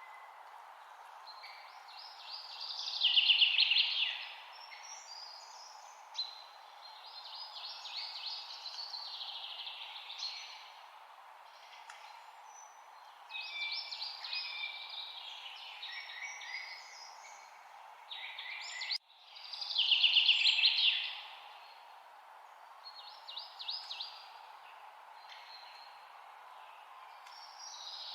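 A songbird singing in a run of high, rapid, chirping phrases, loudest twice: about three seconds in and again around twenty seconds in, with quieter phrases between. A steady low hiss of background noise runs underneath.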